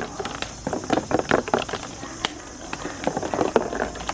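Marbles rolling and clattering down a marble-run track, a fast, irregular run of clicks and knocks.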